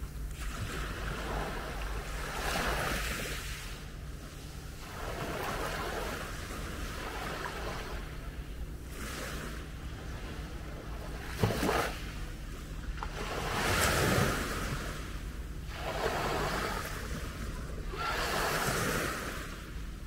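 Small waves breaking and washing up on a fine-gravel beach, each wash swelling and fading about every two to three seconds, over a low steady rumble. A brief thump about eleven seconds in.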